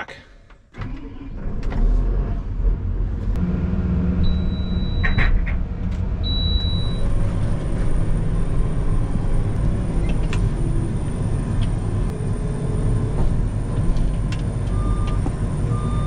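Heavy diesel engine running steadily, coming up about a second in, with a few short high beeps over it.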